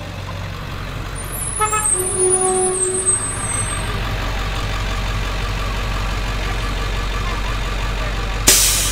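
Diesel school bus pulling up and stopping, its brakes squealing briefly about two seconds in, then its engine idling with a steady low rumble. A short sharp hiss of air comes near the end.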